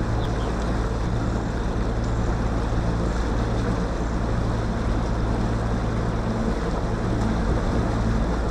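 Bass boat's outboard motor running steadily as the boat moves along, a constant low hum under wind buffeting the microphone.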